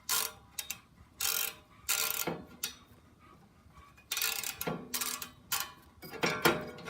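Ratchet wrench clicking in short strokes as it loosens an 8 mm nut, with a pause of about a second and a half in the middle.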